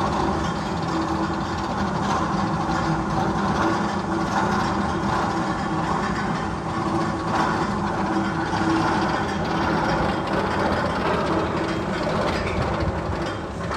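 Magnum XL-200 tunnel sound effect played over loudspeakers: a steady, train-like rumble and clatter with a faint held hum, going on without a break.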